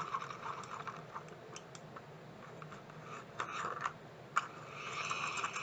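Mini toy washing machine running with a makeup brush shifting around in its basket: a faint steady hum with scratching and rubbing, and a few sharp plastic clicks about three and a half and four and a half seconds in.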